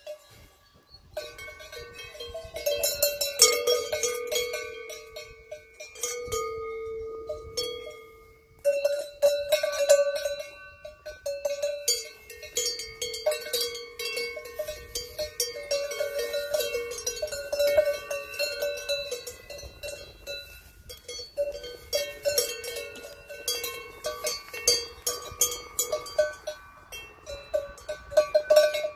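Large brass cowbells on leather collars clanking and ringing irregularly as grazing cows move their heads, several bells sounding together.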